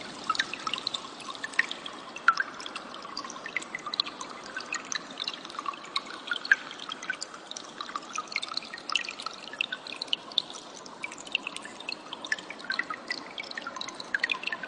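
Water trickling and dripping steadily, with many short, sharp high plinks scattered throughout.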